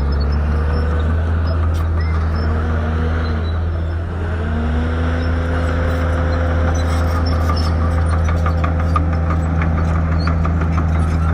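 Shantui bulldozer's diesel engine running under throttle; its pitch sags about four seconds in, then climbs back and holds steady.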